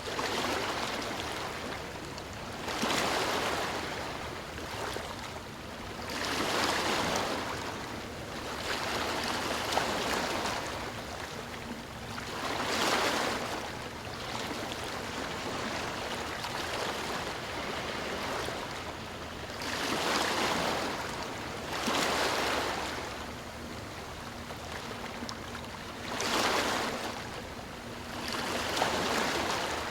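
Ocean waves breaking and washing on a shore, a broad rush that swells and falls back every few seconds over a steady surf hiss.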